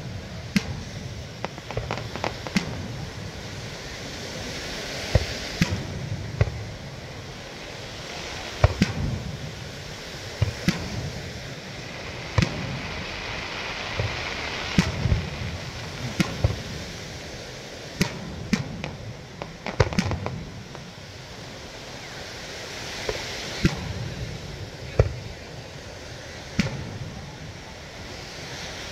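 Aerial fireworks shells bursting in an irregular run of sharp bangs, some alone and some in quick clusters, over a steady wash of surf on the beach.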